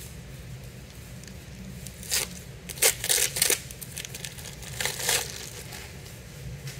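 Plastic wrapping crinkling and tape being peeled off a new Fox shock absorber as it is unwrapped, in short bursts about two seconds in, around three seconds, and again near five seconds.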